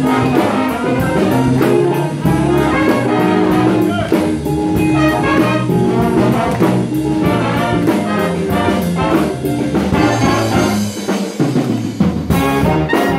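A school jazz big band playing live: the saxophone section, trumpets and trombones over a drum kit, with a cymbal crash near the end.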